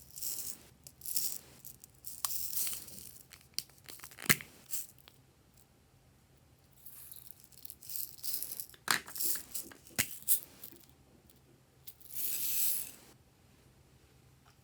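Glossy slime being worked by hand, giving sticky crackles and small pops in irregular bursts, with a few sharp clicks and a longer hiss near the end.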